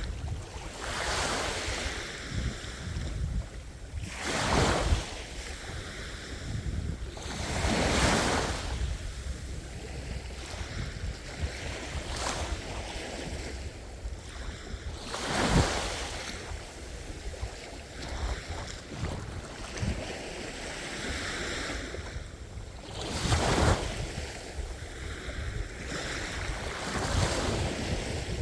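Sea waves breaking and washing on the shore, swelling into a rush of surf every few seconds and falling back between. A steady low rumble of wind on the microphone sits underneath.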